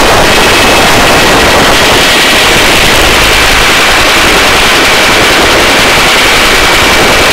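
Helicopter rotor and turbine noise during a hover, heard at the open cabin door: a loud, steady chopping roar with a faint high whine, loud enough to overload the recording.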